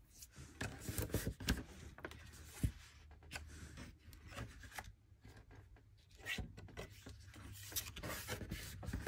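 Paper cardstock being handled on a craft table: soft irregular rustling and sliding, with scattered light taps and clicks.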